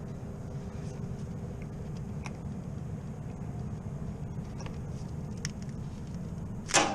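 Walk-in freezer's refrigeration condensing unit running during a pump-down, a steady low hum with a faint steady tone over it. Near the end there is one sudden, loud, sharp knock.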